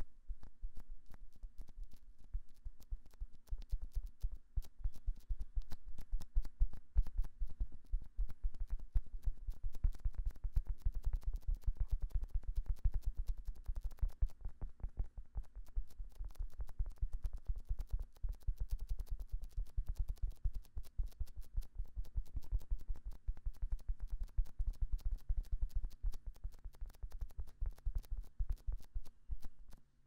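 Fingers rubbing and patting the silicone ears of a binaural microphone, a rapid, continuous run of close, muffled strokes and rustles.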